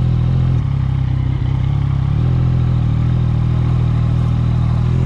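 Motorcycle engine running under way, steady at moderate throttle, easing off briefly and then pulling harder again about two seconds in.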